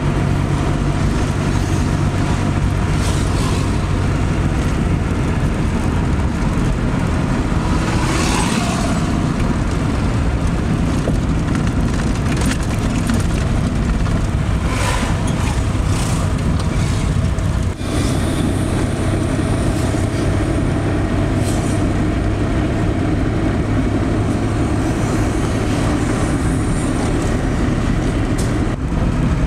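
Motor vehicle engine running steadily with a constant low hum and road noise, a few brief higher-pitched rattles or squeaks over it.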